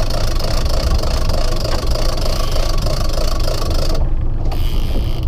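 Boat engine running steadily at trolling speed, with wind on the microphone; a higher whirring layer stops suddenly about four seconds in.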